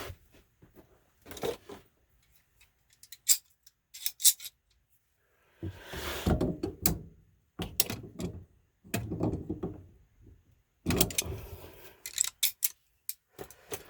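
Hands working on PVC drain fittings and a float switch: a few sharp clicks and taps, then three longer bouts of scraping and rubbing handling noise.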